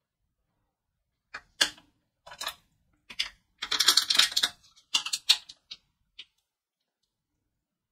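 Shiny plastic wrapper of a Pelon Peloneta lollipop crinkling in gloved fingers as it is handled and turned over. It comes in a series of short, irregular crackles starting about a second in, with the loudest run about halfway through.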